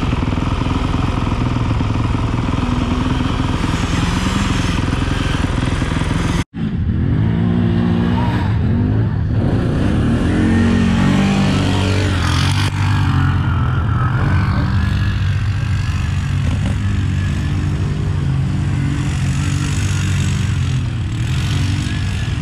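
Off-road vehicle engines running: a steady idle close by with engines revving up and down in the background. The sound cuts out abruptly for a moment about six seconds in.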